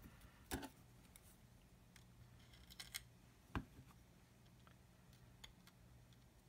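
Faint clicks and taps from handling a plastic scale model and metal tweezers while masking tape is picked off: two sharper clicks, about half a second in and about three and a half seconds in, with a few lighter ticks between, over a low steady hum.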